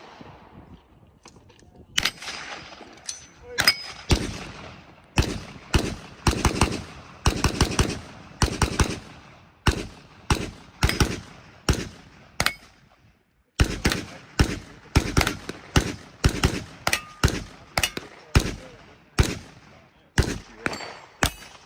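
Rapid small-arms gunfire: dozens of sharp shots, some in quick strings and some spaced out, with a pause of about a second a little past the middle.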